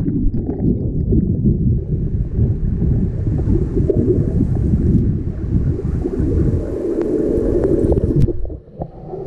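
Muffled underwater noise of water churning around a submerged camera as a swimmer moves: a dense low rumble with little high sound in it. It drops away suddenly about eight and a half seconds in.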